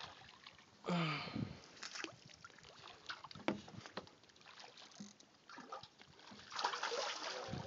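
Faint scattered knocks and clicks, with a brief vocal sound about a second in and a rush of splashing or handling noise near the end.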